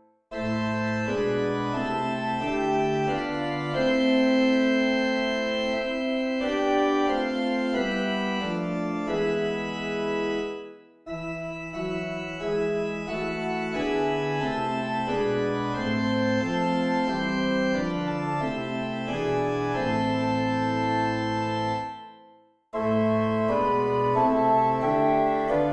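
Organ playing a hymn tune in held chords, verse after verse. It stops twice for a breath of silence between verses.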